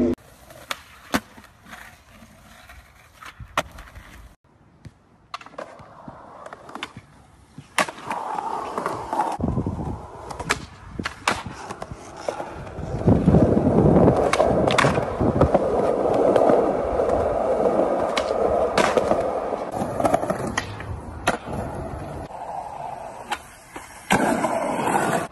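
Skateboards being ridden and trick-landed on concrete: repeated sharp clacks of tails popping and boards slapping down, with a longer stretch of wheels rolling over pavement starting about halfway through.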